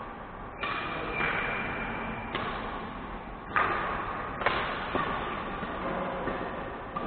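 Badminton rally: rackets striking the shuttlecock, about four sharp hits roughly a second apart, echoing in a large sports hall.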